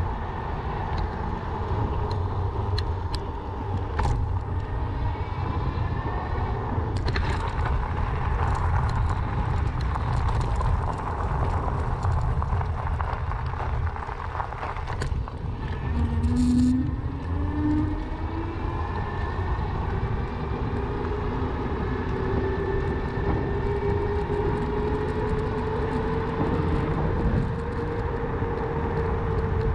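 Riding noise from a moving bicycle: a steady, choppy low rumble of wind and rolling, with scattered light clicks. A whine rises in pitch over the second half and dips again near the end.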